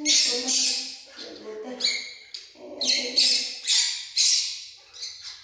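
Baby macaque crying in a string of harsh, high-pitched screams, about eight in a row, with lower calls between them.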